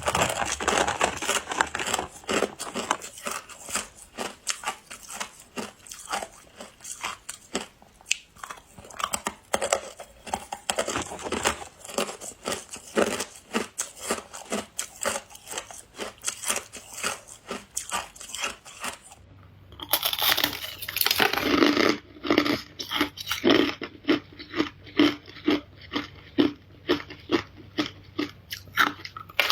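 Ice being chewed and crunched close to the microphone: a rapid, steady run of crisp crunches, about two to three a second, with a brief pause about two thirds of the way through, after which the bites sound different.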